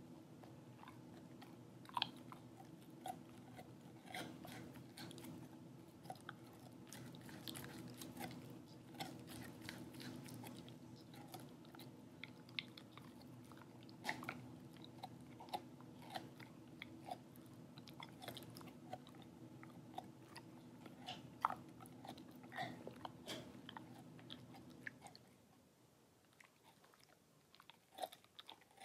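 A dog chewing a rawhide strip: irregular crunching and sharp clicks of teeth on the chew, a few louder bites standing out. A low steady hum runs underneath and stops near the end.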